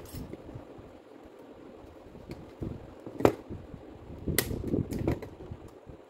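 Light metal clicks and clinks from handling the dismantled gear housing of a Makita M8700 rotary hammer drill with a hex key. There are a few sharp clicks, the loudest about three seconds in, then a quick cluster a little after four seconds.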